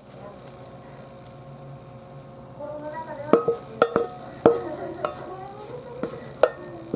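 Silicone spatula scraping bread dough around a stainless steel mixing bowl. From about three seconds in there are short squeaky glides and several sharp knocks of spatula or bowl.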